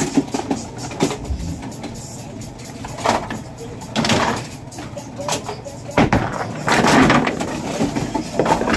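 A bowling ball hits the pins about six seconds in, and the pins clatter for a second or so. The automatic pinsetter runs behind, with a few shorter knocks earlier on.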